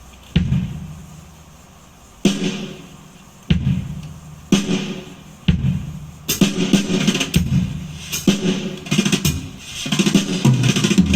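Recorded music played through a homemade amplifier. It opens with single drum hits about a second apart, each dying away, then breaks into a full, steady drum beat about six seconds in.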